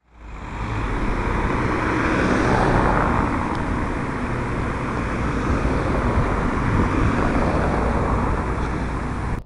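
Cars driving past on a town street, the traffic noise swelling twice, over a low rumble of wind on the microphone. The sound cuts off suddenly at the end.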